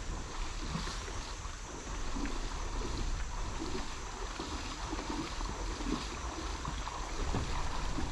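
Flowing water of a small river with scattered splashes, over a low rumble of wind buffeting the microphone.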